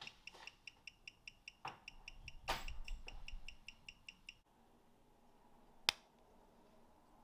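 A 1920s Longines mechanical watch ticking at 18,000 beats an hour, about five even ticks a second, on a timegrapher microphone that reads it running roughly 300 seconds a day slow. About midway there is a brief louder stretch of handling noise. The ticking cuts off at about four and a half seconds, and a single sharp click comes near the end as fingers work the watch case.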